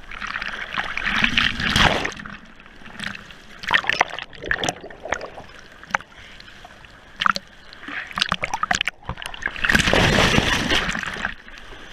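Ocean surf washing over a GoPro at the waterline: a wave rushes over it in the first two seconds, then scattered splashes and drips, and a second, louder wave breaks over it about ten seconds in, muffled as the camera goes under.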